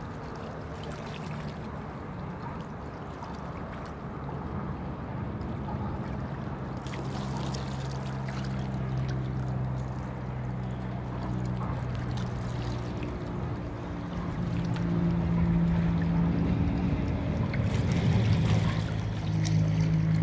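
Motorboat engine running with a steady low drone that grows louder in the last few seconds, over water lapping against the pier.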